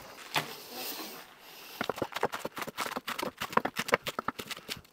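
A knife slicing sweetheart cabbage leaves on a wooden chopping board: a quick, even run of knocks as the blade hits the board, starting about two seconds in. Before that, softer scattered handling noises.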